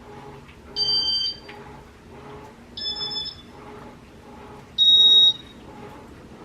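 Three electronic beeps about two seconds apart, each about half a second long and each at a slightly different pitch, the last the loudest: a Casablanca ceiling fan's control beeping as it steps through its demo mode.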